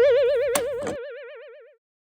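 Cartoon boing sound effect: a wobbling tone that fades away over about a second and a half, with two short clicks partway through.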